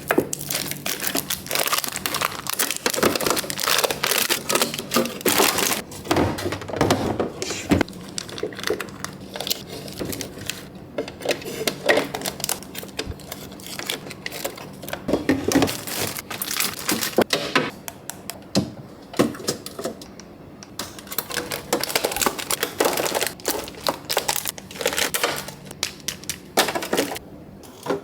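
Plastic bags and food packaging crinkling and rustling, with frequent small clicks, knocks and clatters of items being picked up and set down while a refrigerator and freezer are sorted.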